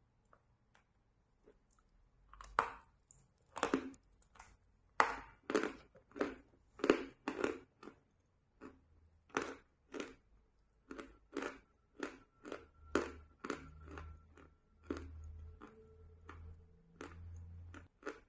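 Crunchy chewing of a dry chalk stick coated in wet chalk paste, starting about two seconds in at roughly two crunches a second, loudest early on and growing softer toward the end.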